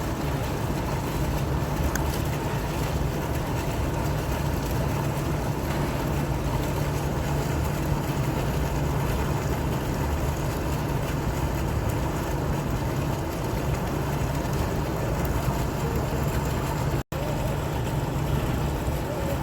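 Fountain water splashing and flowing in a steady, unbroken rush, with a strong low rumble under it. About seventeen seconds in, the sound cuts out for an instant.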